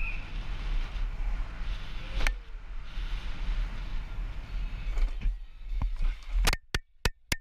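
Riding noise of a downhill mountain bike picked up by a helmet-mounted action camera: a steady low rumble of wind on the microphone and tyres rolling over paving, with a sharp knock about two seconds in. In the last second the sound breaks into a string of sharp clicks with silence between them.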